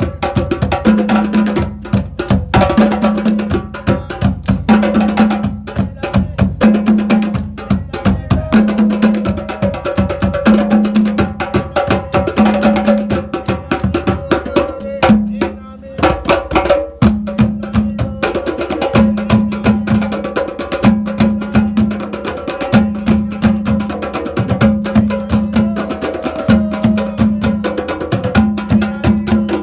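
African hand drumming played live: many fast drum strokes over a steady beat that repeats about once a second, with a brief break about halfway through before the rhythm picks up again.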